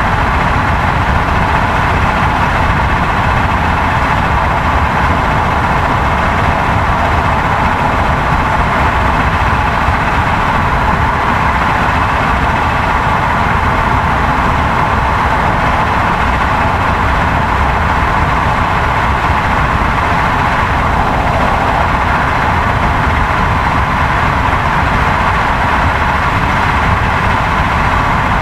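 Steady, loud engine drone, unchanging in pitch and level.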